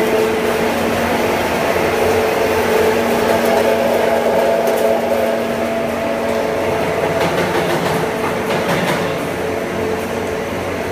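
Corn filled snack production line machinery running: a loud, steady mechanical hum with several held tones and a few faint clicks.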